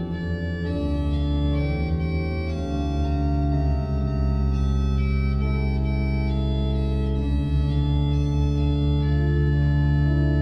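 Organ music: held chords over a steady bass, the notes changing every second or two.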